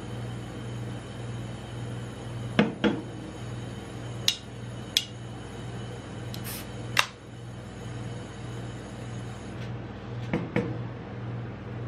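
An aluminium Dr Pepper soda can handled and tapped a few times, then its pull tab cracked open with a short fizzing hiss and a sharp click, and the can knocked twice against the steel cold plate near the end. A steady low hum from the rolled-ice-cream cold plate's refrigeration runs underneath.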